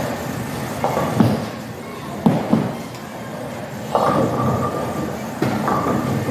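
Bowling alley noise: a bowling ball rolling down a wooden lane over a steady echoing hall din, with several sharp knocks and clatters a little after a second in and again about two seconds in, and louder clattering starting about four seconds in.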